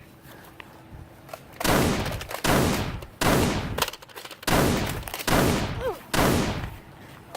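A string of six loud gunshots, each starting suddenly and fading away over most of a second, most of them about a second apart: gunfire sound effects dubbed over the Nerf battle.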